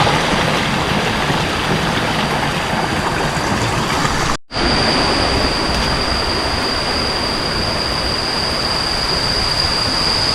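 Kuang Si waterfall's cascades of water rushing, a loud, even wash of sound that drops out briefly about four seconds in and resumes. After the break a steady high-pitched whine runs on top of it.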